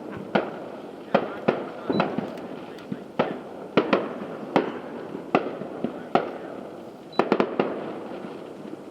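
Fireworks display: aerial shells bursting one after another, more than a dozen sharp bangs at uneven spacing, each trailing off into a rumble, with a quick cluster of several bangs near the end.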